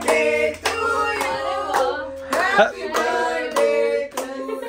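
Several people singing a birthday song together while hands clap in time, about two claps a second.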